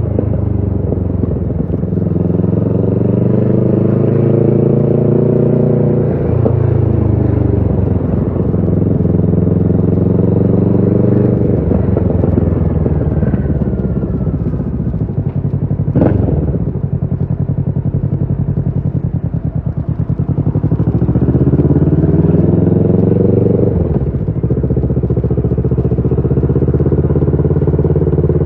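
Kawasaki Ninja 650's parallel-twin engine through a Shark SRC-4 full exhaust system, heard from the moving bike. It revs up through the gears: the pitch climbs for about six seconds, drops at a shift, holds, eases off around twenty seconds, then climbs again to another shift. A single sharp crack comes about sixteen seconds in.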